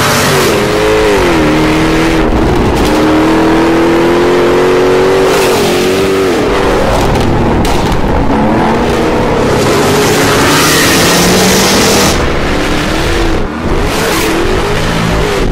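Jaguar F-Type R's supercharged 5.0-litre V8 and sports exhaust, driven hard through the gears. The engine note drops at a shift about a second in, climbs steadily for several seconds, drops again around six seconds in, then rises and falls with the throttle, with a spell of hiss around ten to twelve seconds in.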